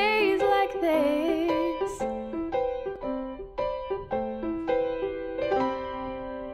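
Background music: a piano melody of single struck notes, closing on a held chord that slowly fades out.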